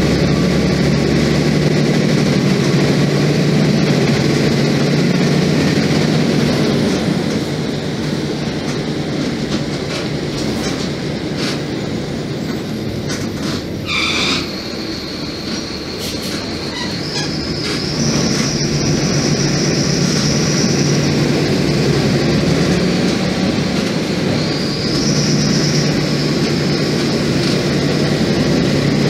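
Mercedes-Benz OF-1724 Bluetec 5 bus's diesel engine running on the move, heard from inside the bus. It eases off about a quarter of the way in and pulls harder again after about 18 s. A short squeal comes near the middle, and a high whine rides over the later pulls.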